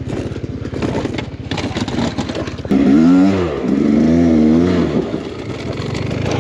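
Beta X-Trainer 300 two-stroke dirt bike engine: scraping and clattering for the first couple of seconds, then the engine revving hard from a little under 3 seconds in, its pitch surging up and down.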